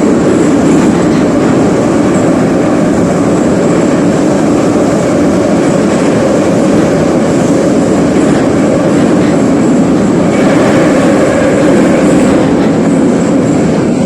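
Moscow metro train running at speed through the tunnel, heard from inside the carriage: a loud, steady rumble of wheels on rail with a faint thin whine above it.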